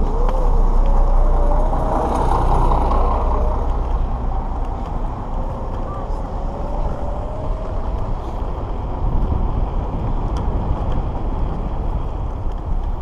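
Electric scooter ride over asphalt: steady rumble of the wheels on the road and wind buffeting the microphone, with a faint whine that rises in pitch near the start and again midway.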